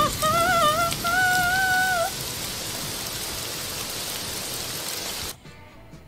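A woman sings the last held note of a Turkish folk song, which ends about two seconds in. A steady hiss like rain carries on after it and cuts off abruptly near the end.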